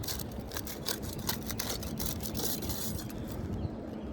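Asphalt shingle tabs being lifted and worked by hand to find the nails beneath: a rapid run of dry scratchy scrapes and crackles, thinning out after about three seconds, over a low rumble of wind on the microphone.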